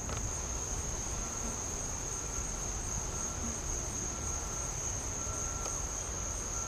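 Insects trilling in one steady high-pitched drone, over a low outdoor rumble.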